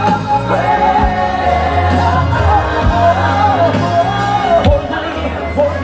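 Gospel music: a singer's voice sliding between notes over steady low bass notes and a drum hit about once a second.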